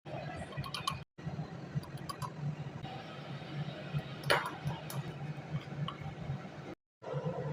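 Kitchen utensils and dishes clinking lightly now and then over a steady low hum, the loudest clink about four seconds in. The sound cuts out briefly twice.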